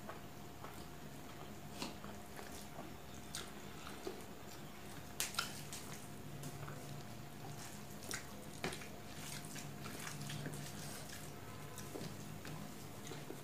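Eating rice and curry by hand: wet squishing as the fingers work the rice, and mouth smacks while chewing, heard as scattered sharp clicks, loudest a pair about five seconds in. A steady low hum runs underneath.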